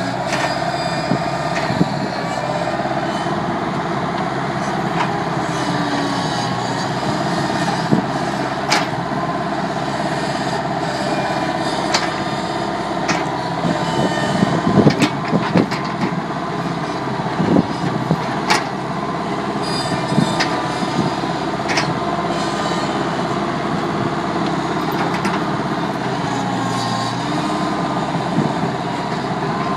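Bobcat skid-steer loader's diesel engine running steadily while it works a backhoe attachment, its pitch shifting slightly. Scattered knocks and clanks of the backhoe bucket come through, several in quick succession around the middle.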